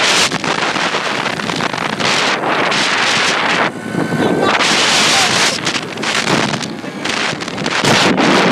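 Heavy wind buffeting the phone's microphone as a moped carries it along at speed, a loud gusty rush that swells and dips, briefly easing a little under halfway through.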